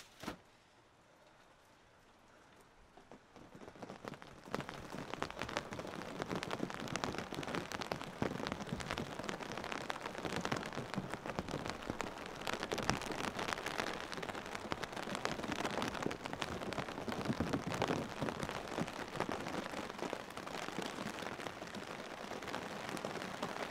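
Steady rain falling, thick with the small ticks of individual drops. It fades in about four seconds in, after a nearly quiet start broken by a single click.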